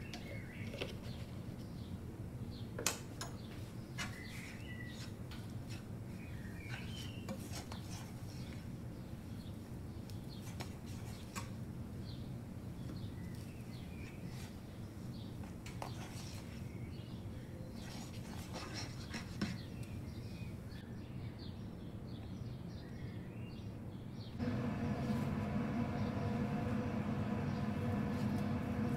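A spatula scraping and clinking against a pan while stirring a dry, crumbly spiced potato filling, with a few sharp clicks and faint bird chirps behind. Near the end a louder, steady hum with several tones sets in.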